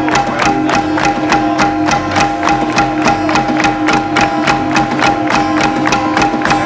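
Live music: a fast, even percussive beat over long held tones.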